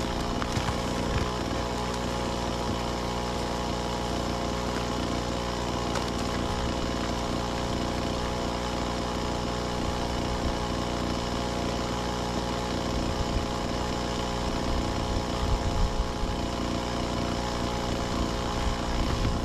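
An engine running steadily at an even speed, getting a little rougher and louder near the end.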